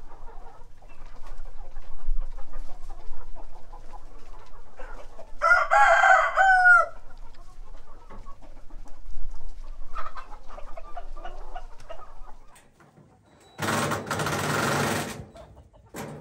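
A flock of chickens clucking, with a rooster crowing once about five and a half seconds in. Near the end a loud noisy burst lasts about a second and a half.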